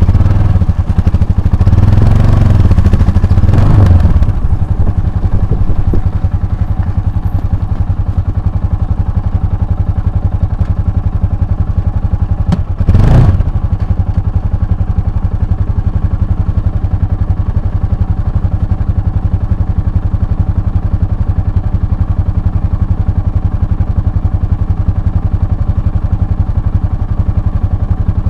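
Motorcycle engine running, louder and varying for the first four seconds, then settling into a steady, even note, with one brief louder surge about 13 seconds in.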